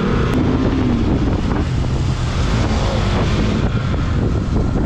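Wind buffeting the microphone of a moving motorcycle, with the bike's engine running underneath as it rides along.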